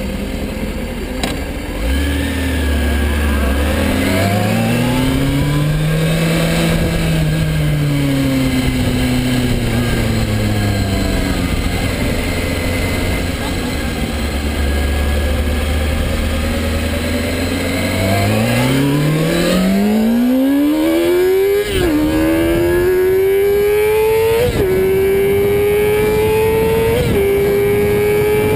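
A 2006 Kawasaki ZX-6R 636's inline-four engine idling, its revs rising and falling once as the bike moves off, then idling again. About eighteen seconds in it goes to full throttle: the pitch climbs steeply and drops sharply at three quick upshifts as the bike accelerates hard.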